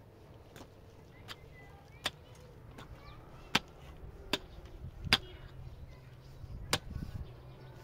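Repeated sharp blows of a hand tool striking a hard material, about eight strikes at an even pace of roughly one every three-quarters of a second, with a short pause before the last.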